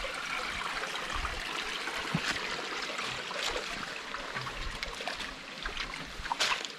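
Shallow stream water running and trickling over stones in a steady rush, with a few faint knocks near the end.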